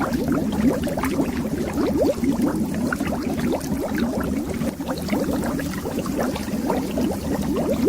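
Continuous stream of air bubbles underwater: many small bubbles, each a short rising bloop, overlapping densely and steadily.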